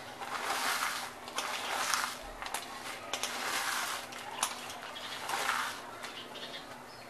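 Fried, puffed edible gum (gond) being crushed between the fingers on a ceramic plate: dry crunching and crackling that swells and fades in repeated handfuls, with a few small sharp clicks.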